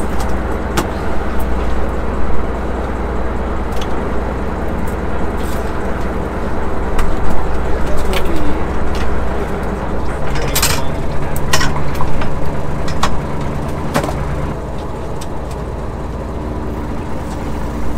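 Fishing boat's engine running steadily, with scattered sharp knocks and clanks over it; a second, higher hum joins in for a few seconds about ten seconds in.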